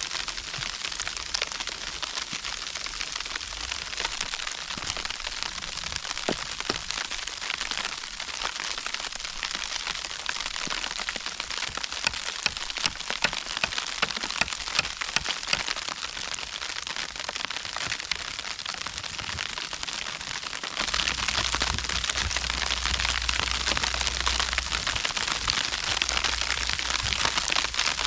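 Snowstorm precipitation pattering steadily on a surface, a dense stream of small ticks. A low rumble joins about 21 seconds in and the whole gets louder.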